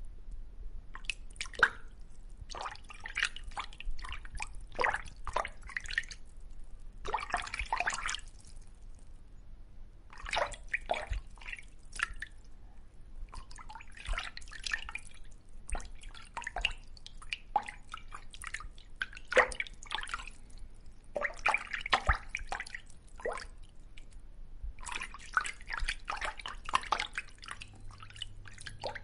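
Water dripping and bubbling in irregular clusters of short plops, with short pauses between the clusters, over a faint steady low hum.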